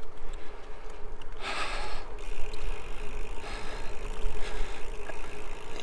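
Wind rumbling on the microphone while riding a Trek Checkpoint gravel bike, with tyre and road noise and a short louder rush of noise about a second and a half in.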